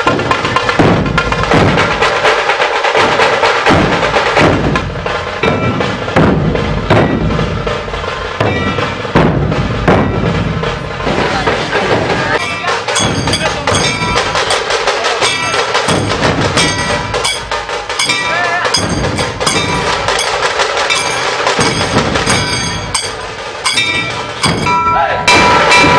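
Traditional dhol-tasha procession drumming: large dhol barrel drums and tasha snare drums beating a fast, driving rhythm. Near the end a loud, held pitched tone joins the drums.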